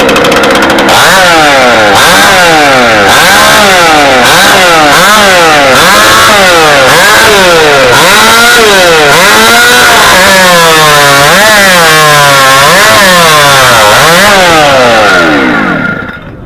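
Stock-class two-stroke chainsaw running loud in a competition cut through a log, its engine pitch swinging up and down about once or twice a second as it works in the wood. It winds down and stops near the end.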